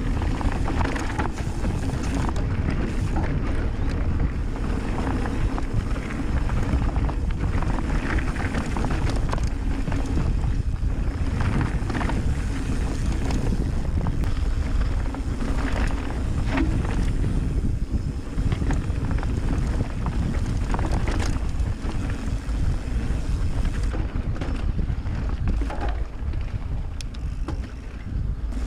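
Mountain bike riding fast down a dirt trail: wind buffets the camera microphone over the steady rumble of the tyres, with frequent short knocks and rattles over the bumps.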